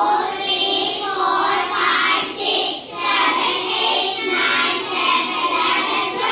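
A class of children's voices in unison, many together, with a brief pause about three seconds in.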